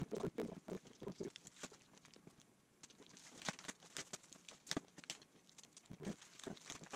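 Plastic wrapping crinkling and tearing, with irregular light clicks and knocks as polished aluminium mounting brackets are pulled out of their shrink-wrapped packaging.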